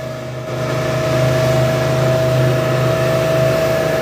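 Fishing boat's engine running steadily at cruising speed, with the rush of the hull and wake through the water; it gets a little louder about a second in.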